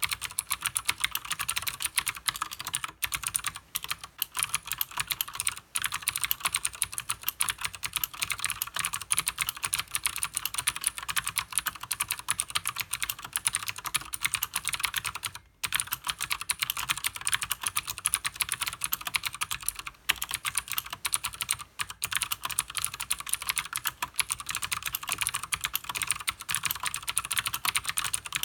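Fast, continuous typing on a Leopold FC900R mechanical keyboard with Cherry MX Blue switches and PBT keycaps: dense clicky keystrokes, broken by a few brief pauses, one about halfway through.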